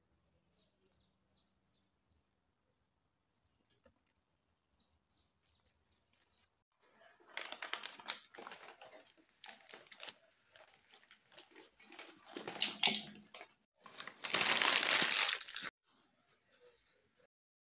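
Faint small-bird chirps in two short runs of about four, then a yellow wrapping bag being unwrapped and crumpled by hand with loud irregular crinkling, loudest in one continuous stretch near the end.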